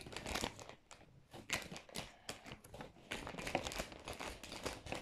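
An empty chip bag crinkling and rustling as it is handled, with quick irregular crackles.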